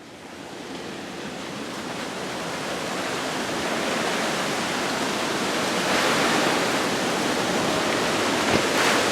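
Steady drone of hurricane wind and rain, growing louder over the first few seconds and then holding.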